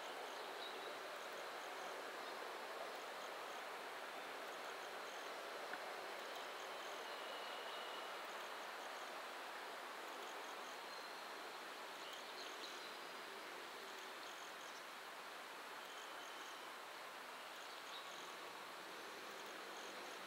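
Faint, steady outdoor background hum of a city, with faint high chirps of insects repeating about once a second.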